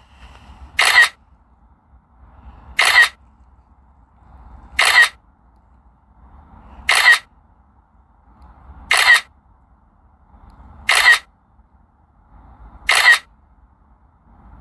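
Camera shutter sound from the drone controller app, clicking seven times at an even pace of about one every two seconds as each hyperlapse frame is taken.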